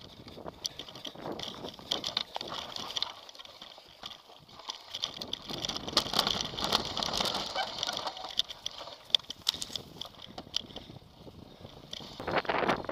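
Mountain bike ridden fast over a rough dirt forest singletrack, heard from a camera on the bike or rider: the bike rattles and clatters in many sharp clicks over the bumps under a rough noise of tyres and rushing air.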